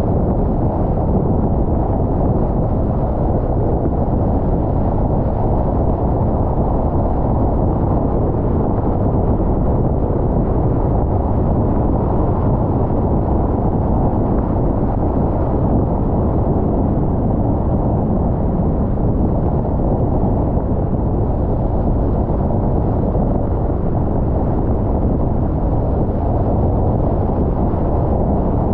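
A car driving at a steady speed: an even rumble of road and tyre noise with no change in pace.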